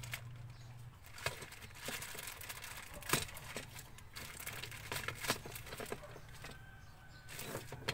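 Plastic packaging bag crinkling and rustling as it is handled, with scattered sharp crackles, the sharpest about three seconds in.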